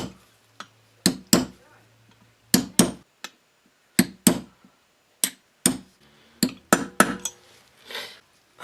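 Hammer tapping a crankshaft oil seal into a scooter engine's crankcase: about a dozen sharp light blows, often in twos or threes, worked around the seal a little at a time.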